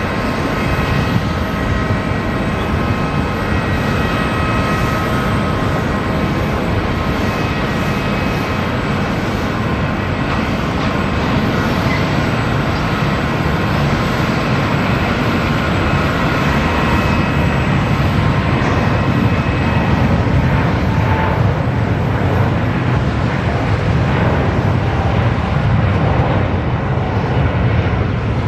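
Boeing 787-9 airliner's turbofan engines at takeoff power: a steady jet noise with several high, steady whining tones above it. The low rumble grows louder over the last third.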